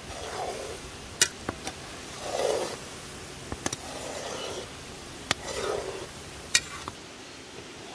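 A slotted skimmer stirring and scraping through boiling strawberry jam in a metal pot, in sweeps about every one and a half to two seconds, with a few sharp clicks in between.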